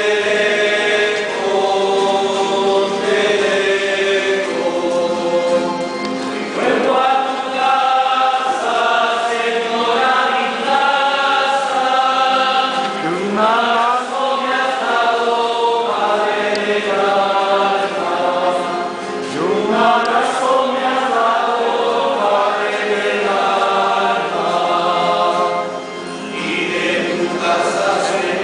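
A choir of voices singing a processional hymn in a chapel, long held notes in phrases of a few seconds with short breaks between them.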